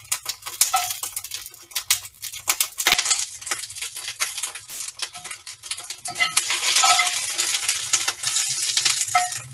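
Scallions sizzling and popping in a hot cast iron skillet, with metal tongs clicking and scraping against the pan as they are turned. The sizzle grows louder about six seconds in.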